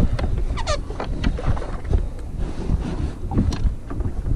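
Wind buffeting the microphone over choppy water lapping at a kayak, with a few scattered knocks and splashes.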